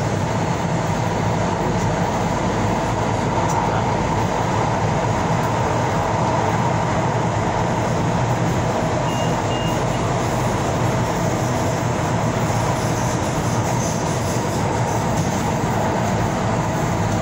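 Tyne and Wear Metro train running on the rails, heard from inside the passenger car: a steady rumble and rail noise that does not let up.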